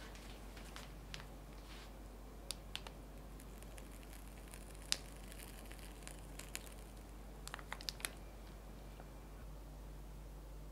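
Whipped cream being piped into a glass dessert cup: a few faint clicks and small taps over quiet room tone. The sharpest tick comes about five seconds in, followed by a quick run of clicks near eight seconds.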